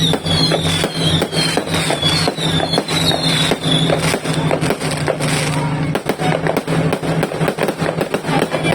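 A multi-shot fireworks cake firing a rapid, unbroken volley of bangs and crackles, with short falling whistles over the first few seconds.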